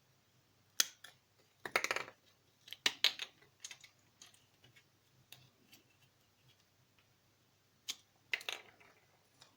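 Hard plastic Kinder Surprise egg capsule being cut apart: sharp snaps and short crackling runs about a second in, around two and three seconds, and again near the end.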